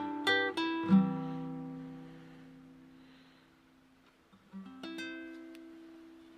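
Acoustic guitar playing a few quick plucked notes, then a chord left to ring and die away slowly; a last chord is struck about four and a half seconds in and rings out.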